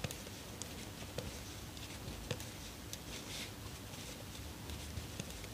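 Faint, irregular small clicks and soft rustling of knitting needles and wool yarn as stitches are knitted by hand.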